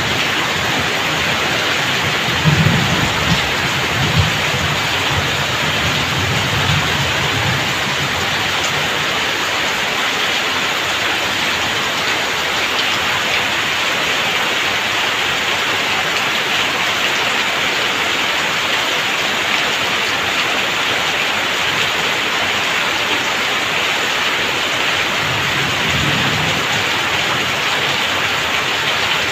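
Heavy downpour: steady rain hissing on the roofs and water pouring off the roof edges, splashing onto the ground. Low rumbles of thunder come through a few seconds in and again near the end.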